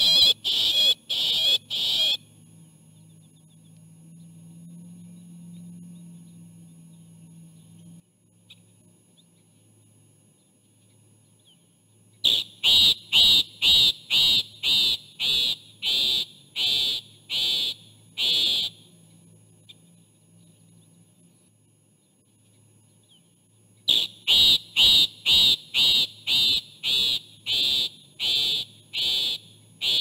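Loggerhead shrike calling in an agitated bout: three runs of loud, high repeated notes, about two a second, separated by pauses of several seconds.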